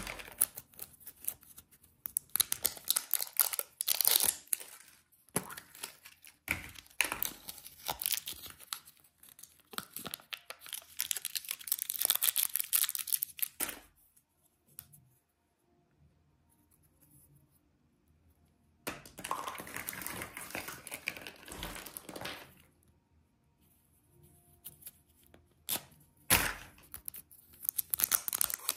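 Thin plastic wrapping on candy surprise eggs being torn, peeled and crinkled by hand, in stretches of rustling with quiet pauses, the longest one around the middle.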